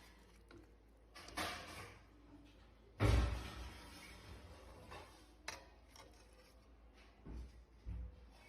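Scattered knocks and bumps, as of things being handled and set down. The loudest is a heavy bump about three seconds in that dies away over a second, with smaller knocks near the end.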